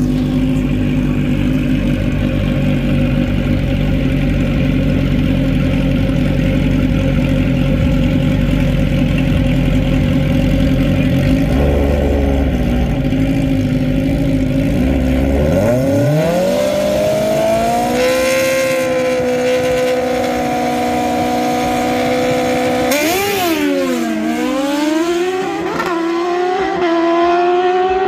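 Two all-motor drag-race motorcycles, a Suzuki and a Kawasaki, run steadily at the start line. About halfway through they launch off the hand clutch: the engine pitch climbs steeply and holds high, then drops sharply and climbs again at a gear shift as the bikes pull away down the track.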